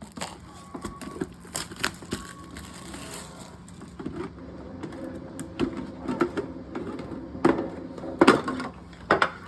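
Crinkling and clicking as a Pokémon card tin is opened and its wrapped packs and promo card are handled, a string of irregular short clicks and rustles, busiest near the end.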